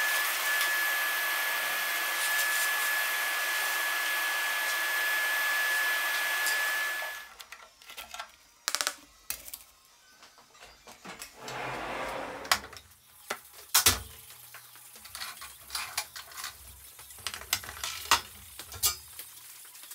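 A small electric motor running at a steady speed with a high whine and a rushing hiss, which stops abruptly after about seven seconds. After it come scattered knocks and clatter of tools and parts being handled.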